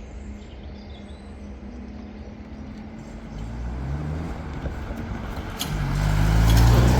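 Cars pulling away over a road level crossing, engine notes rising as they accelerate. A second, louder car passes close near the end.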